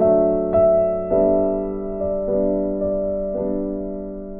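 Slow, gentle background piano music: single notes struck about every half second and left to ring and fade.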